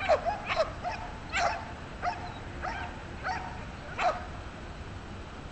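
Belgian Malinois barking in a string of short, high yelps, some with a rise-and-fall whine to them, about every half second to second, stopping after about four seconds.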